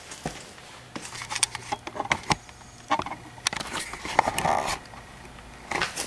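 Scattered light knocks and clicks of pine boards and wooden spacers being handled and set in place on the shelf frame, with a brief rustle about four seconds in.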